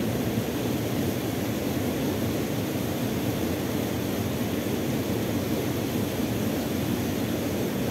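Steady, even rushing of water from a small waterfall and rapids in a creek.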